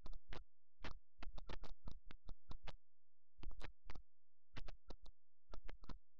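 Computer keyboard being typed on, short sharp key clicks in irregular quick runs, over a steady low hum.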